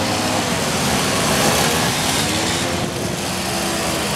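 Several old two-stroke mopeds riding past at low speed, their small engines running together, with the pitches of individual engines rising and falling as they throttle.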